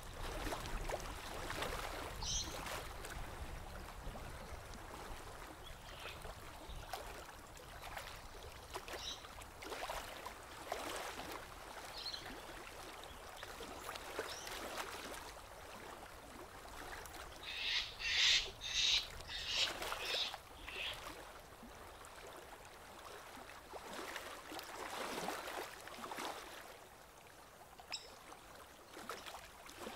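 Soft, irregular lapping of small wavelets against the riverbank, with a few brief high bird chirps. About eighteen seconds in, a bird gives a loud quick run of about six high notes lasting some three seconds.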